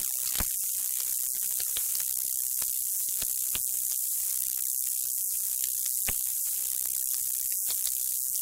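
Designed sci-fi ambience: a steady high static hiss with random water-like drops and sharp clicks scattered through it at irregular intervals.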